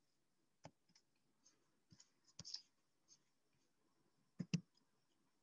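Near silence broken by a handful of short, sharp clicks at a computer while a frozen slideshow is being got going again; the loudest is a quick pair near the end.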